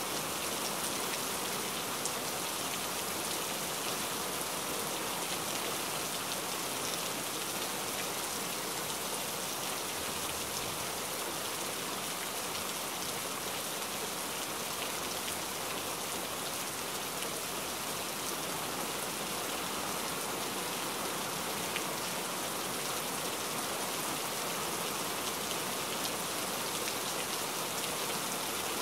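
Heavy rain falling steadily, a dense even hiss with fine patter of drops hitting a surface.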